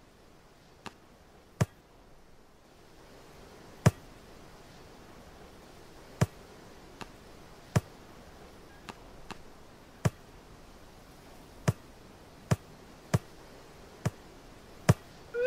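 A ball being kicked and juggled on a foot: about fourteen short, sharp kicks at an uneven pace, some fainter than others, over faint outdoor background.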